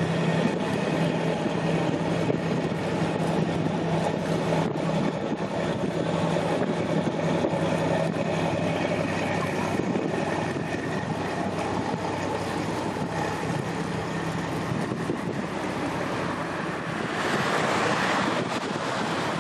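Waterside ambience: a steady low engine hum with wind on the microphone and water washing against the embankment. The hum fades about halfway through, and a louder rush of wind-like hiss swells near the end.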